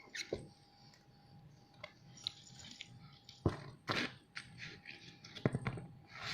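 Short, abrupt coughs: two in quick succession a little past halfway, and two more shortly before the end, with fainter bursts at the start.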